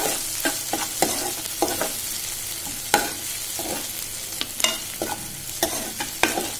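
Sliced onions frying in mustard oil in a karahi, sizzling steadily, just starting to brown. A metal spoon stirs them, with irregular sharp scrapes and clinks against the pan.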